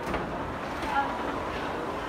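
Steady background din of a busy public walkway, with faint, distant voices and a brief louder knock about a second in.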